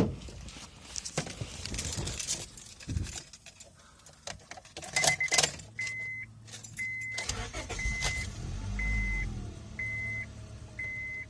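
A 2005 Honda Civic starting on a jumped battery: a brief burst of cranking about five seconds in, then the engine idling with a steady low hum. Over it, a dashboard warning chime beeps about once a second.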